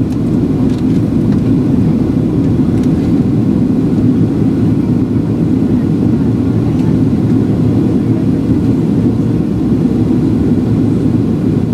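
Steady cabin noise of a Boeing 737-700 airliner in flight: a constant low rumble of the engines and rushing air, heard from inside the passenger cabin while the aircraft descends.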